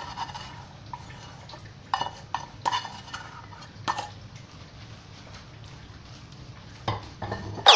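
A spatula scraping and knocking against a large wok as a big batch of fried instant noodles is stirred, giving a few sharp, irregular clanks over a low, steady background noise.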